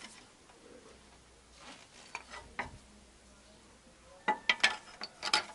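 A few light metallic clinks and taps of a wrench and bolt against the car's underbody, starting about four seconds in, while a bolt is fitted and tightened on a new front engine mount.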